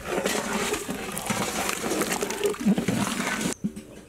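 Ladle stirring and scraping through a metal pot of simmering greens, a busy clattering hiss that cuts off abruptly near the end.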